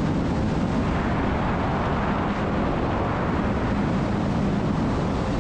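Jet skis running at speed on open water: a steady engine drone under the rush of water spray and wind.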